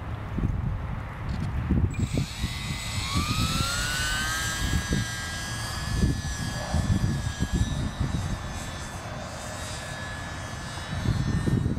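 Radio-controlled model biplane's motor throttling up for takeoff: a whine that comes in about two seconds in, rises in pitch, then holds steady and slowly fades as the plane climbs away. A gusty low rumble of wind on the microphone runs underneath.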